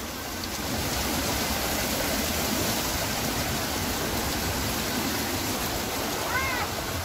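Water running down a stone water wall into a channel below: a steady rush of falling water.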